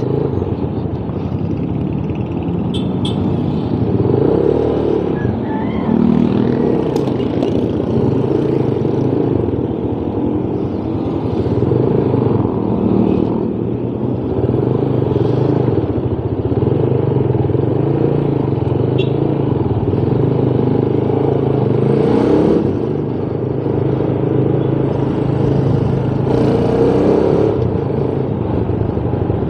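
A motorcycle engine running at low speed in stop-and-go traffic, its revs rising and falling gently as it moves off and slows.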